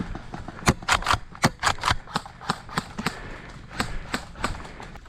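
Airsoft gunfire: about fifteen sharp snapping shots in an irregular string, some in quick pairs and triplets, starting just under a second in and running until near the end.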